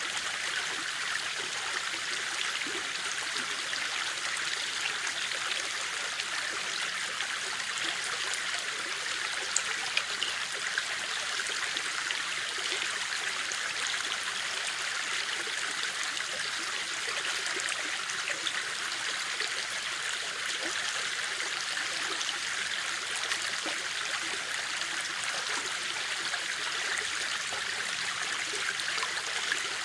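River water flowing steadily over stones: an even, unbroken rush of water.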